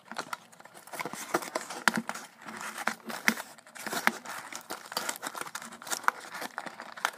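Hands opening a small paperboard retail box: the packaging rustles and crinkles, with many irregular sharp clicks and taps as the flaps and inner tray are worked loose.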